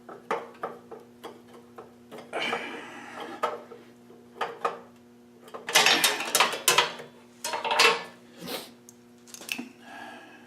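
Hand tools and screws clinking and scraping on the mini bike's metal parts as a chain guard is fastened: a string of small clicks and taps, a scraping stretch a couple of seconds in, and a cluster of louder metallic clatter about six seconds in.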